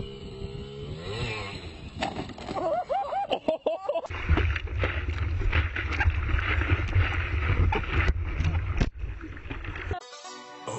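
A person's voice wavering up and down, then water splashing and rushing with wind buffeting the microphone from about four seconds in, as someone rides fast over the water in a life vest.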